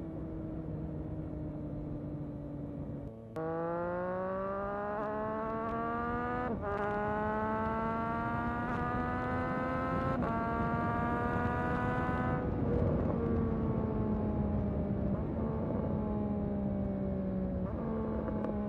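Motorcycle exhaust recorded close up while riding: the engine note cuts out briefly about three seconds in, then climbs in pitch through two upshifts. From about two-thirds of the way through, the pitch slowly falls as the bike eases off, with more wind rush.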